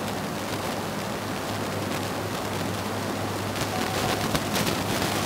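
Steady hiss with a constant low hum, and from about three and a half seconds in a few short scratchy strokes of a marker pen writing on a whiteboard.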